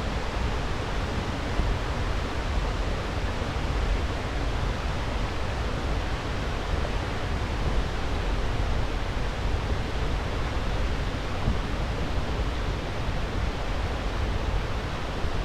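Waterfall and its creek rushing steadily, an even unbroken wash of water noise.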